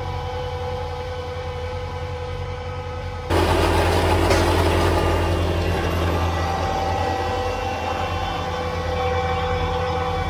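Kubota BX23S compact tractor's three-cylinder diesel engine running under load with its front-mounted snowblower turning and throwing snow, a steady drone with a whine in it. It gets abruptly louder and rougher about three seconds in.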